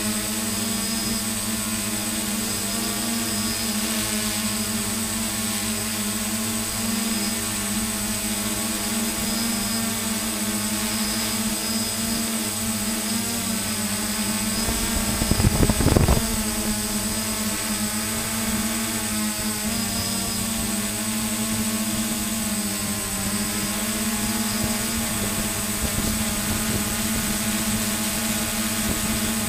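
Multirotor camera drone's electric motors and propellers humming steadily while hovering, their pitch wavering slightly as the motors adjust. A short low rumble near the middle is the loudest moment.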